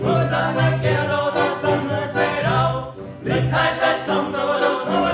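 Several male voices singing together in an Alpine folk song, accompanied by a diatonic button accordion and bowed strings, with steady low notes pulsing in time.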